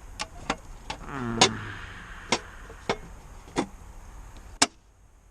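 A run of sharp, unevenly spaced clicks and knocks, about one every half second, over a faint hiss. There is a brief sound about a second in that falls in pitch, and the sound cuts off abruptly near the end.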